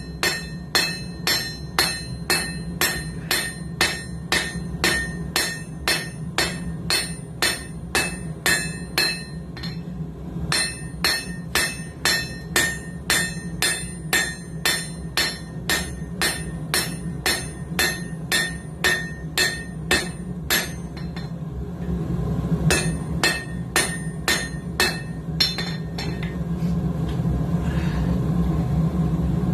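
Hand hammer striking hot coil-spring steel on an anvil about twice a second, each blow ringing, as the metal is drawn out and thinned. The hammering pauses briefly twice. A steady low hum runs underneath and grows louder near the end.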